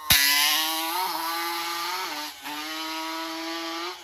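ATV engine held at high revs: a steady, high buzzing engine note that starts suddenly and dips briefly about a second in and again a little past two seconds.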